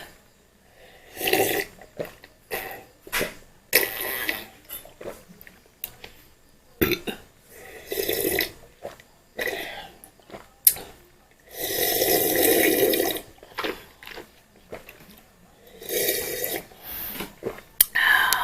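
Close-up eating sounds from a mouth working on a mouthful of instant fried noodles: a string of separate wet slurps and chews, each lasting about a second, with the longest and loudest about twelve seconds in.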